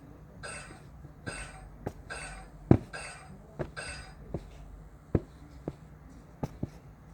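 A series of sharp knocks and clicks, the loudest about three seconds in, mixed in the first half with short hissing scrapes.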